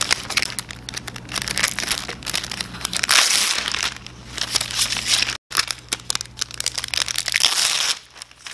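Plastic packets of rubber jig skirt strands crinkling and rustling as they are handled and opened, in quick irregular crackles, with a short silent gap about five seconds in.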